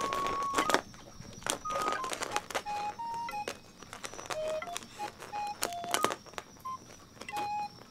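A simple electronic tune of short, pure beeping notes stepping up and down in pitch, with scattered light taps and knocks.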